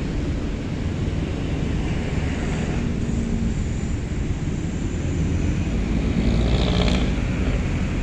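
Road traffic going by as a steady low rumble, growing louder about six seconds in as a vehicle passes close.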